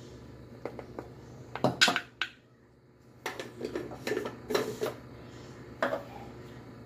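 Clinks and knocks of a bowl against a metal plate as cornstarch is tipped out onto it. The loudest knocks come just under two seconds in; after a brief pause, lighter clatter follows.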